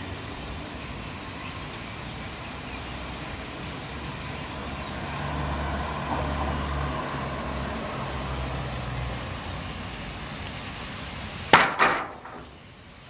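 Steady urban traffic noise, with a vehicle's low engine rumble swelling through the middle, then two sharp knocks close together near the end.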